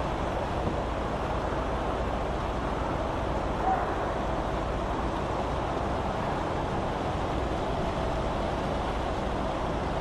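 Steady rushing noise of an automatic bus wash at work: tall rotating brushes scrubbing a minibus as it drives through the wash. A short high note sounds once about four seconds in.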